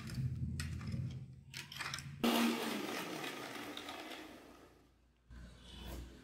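A metal spoon clicks and scrapes in a small steel bowl while juice and sugar are stirred. About two seconds in, an electric mixer grinder blending grapes starts abruptly with a loud whir and fades away over about three seconds.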